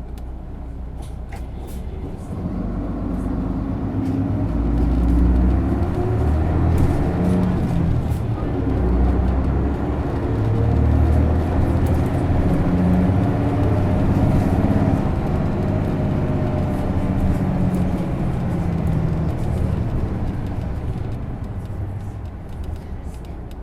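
Isuzu Erga city bus diesel engine, with its six-speed manual gearbox, pulling hard under acceleration. The engine note grows louder from about two seconds in, steps in pitch several times as the gears change, and eases off near the end.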